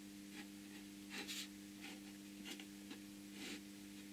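A pen drawing on a card: several short, faint scratching strokes, each lasting a fraction of a second and coming irregularly about every half second. A steady low hum runs underneath.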